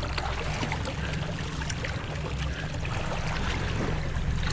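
Fishing boat's engine running with a steady low drone, with water rushing and splashing along the hull.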